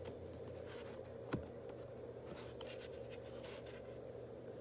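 Hands turning a thick cardboard page of a board book: light scraping and rubbing, with one sharp tap just over a second in. A faint steady low hum runs underneath.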